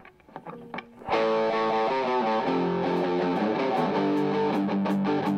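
Live rock band starting a song: a few quiet picked guitar notes, then about a second in a distorted electric guitar comes in loud with the band. Sharp drum hits join near the end.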